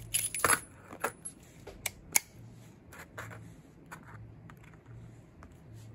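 Ruger Speed Six 9mm revolver being handled: a quick metallic clatter in the first half second as a moon clip of cases is ejected from the open cylinder, then several sharp metal clicks, the loudest about two seconds in.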